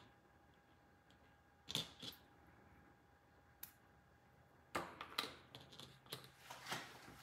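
Light clicks and taps of small metal HDMI adapter connectors and a flat ribbon HDMI cable being handled, fitted together and set down on a tabletop. A few isolated clicks come about two seconds in and near the middle, then a quick run of them towards the end.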